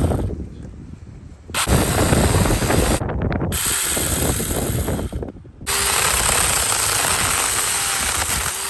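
Tomyvic 6-inch cordless mini chainsaw running and cutting through a branch. The saw starts about a second and a half in, stops briefly after about five seconds, then runs steadily again and fades near the end.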